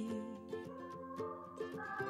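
Background music: an English-language song in an instrumental passage between sung lines, with held notes and short plucked or struck notes.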